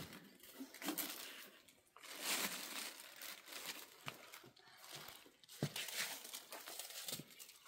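Irregular rustling and crinkling, as of material being handled, coming in a few separate spells with some small clicks in between.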